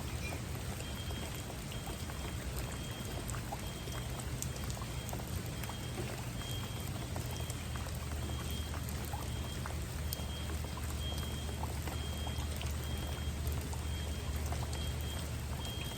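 Rain falling steadily, a continuous hiss with the patter of individual drops over a steady low rumble. From about a second in, a faint high-pitched pip repeats about twice a second.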